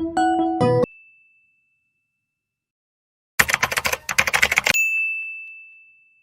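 Typewriter sound effect: a fast run of keystrokes lasting about a second, ending in a bell ding that rings out and fades. Just before, a bar of music stops with a similar ding.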